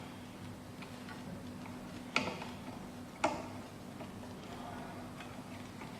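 Two sharp metallic clicks about a second apart, with a few fainter ticks, from the key blank and tubular key clamp being handled and tightened on a CNC key cutting machine, over a steady low hum.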